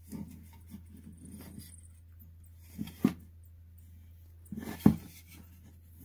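Soft knocks and rubs of a carved wooden piece being handled and shifted on a wooden workbench: a couple about three seconds in and the loudest just before five seconds, over a low steady hum.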